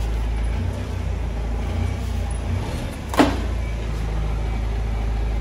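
A steady low hum runs throughout, with a single sharp metallic clank about three seconds in as the old engine, hanging from its hoist chain, is worked out of the snowcat's engine bay.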